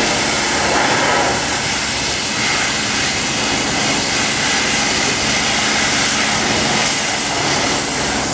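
Pressure washer spraying a rooftop kitchen exhaust fan: a steady, loud hiss of the high-pressure water jet hitting the fan's metal housing, with no break.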